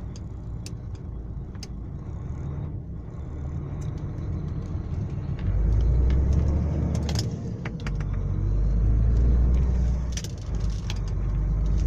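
Truck engine running and pulling under way, heard from inside the cab as a low drone that grows louder about halfway through. Scattered sharp clicks and rattles from loose things in the cab.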